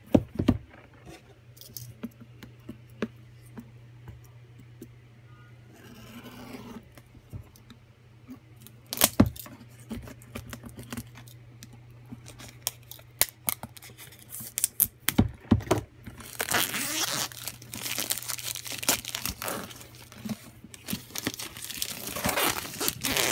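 Headphone retail box and its packaging being handled and opened: scattered taps, clicks and scrapes, then longer stretches of tearing and crinkling in the last several seconds. A steady low hum runs underneath.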